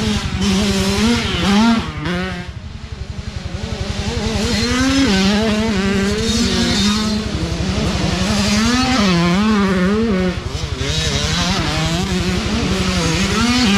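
Youth dirt bike engines revving hard, the pitch climbing and dropping again and again as riders accelerate and shift. The sound dips briefly about two seconds in, then grows louder again as the next bike comes up the track.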